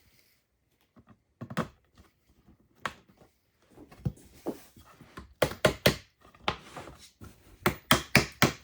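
Hammer tapping plastic fittings into a chipboard drawer: a few single knocks, then quick runs of several strikes in the second half.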